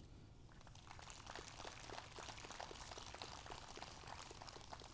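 Faint, scattered clapping from a distant audience.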